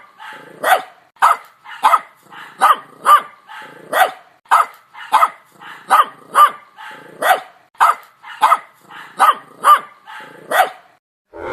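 Dog barking over and over, about two barks a second, stopping shortly before the end.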